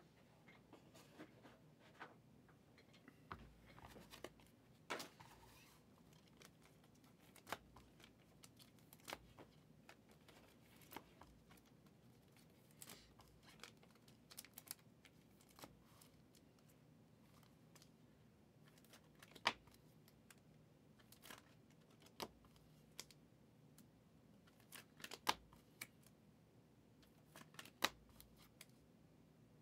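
Prizm football trading cards being handled and sorted by hand: irregular sharp clicks and taps as cards are flicked and set down on the table, a few louder snaps in the second half, over near silence.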